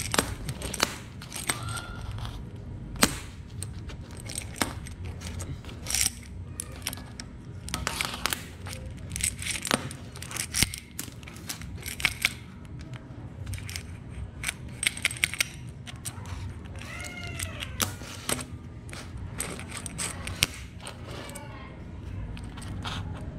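Roller chain and steel tube of a homemade chain wrench clinking and rattling as they are handled on a metal worktop, with sharp irregular clicks throughout. A few short wavering tones come in the last third.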